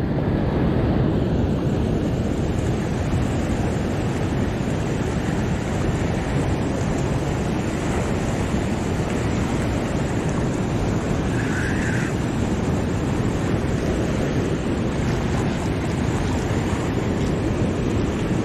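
Steady rush of fast, churning water pouring through a lake spillway inlet, with wind buffeting the microphone.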